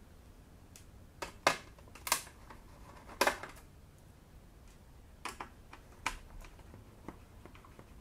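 Small sharp clicks and taps, about ten scattered irregularly, from a precision screwdriver working the screws out of a laptop motherboard, the louder ones a few seconds in.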